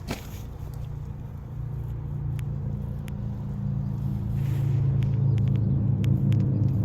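An engine running with a steady low hum that grows louder over the first few seconds and then holds. There is a sharp click at the start and a few light clicks later.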